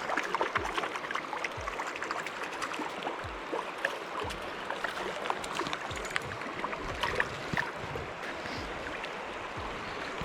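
River water running over rocks, a steady babbling rush with many small crackles and splashes.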